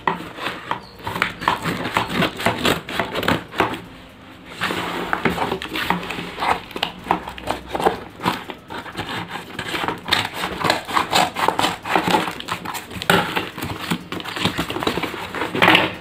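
Cardboard shipping box being torn open by hand: irregular ripping and crackling of cardboard and packing tape, with a short pause about four seconds in.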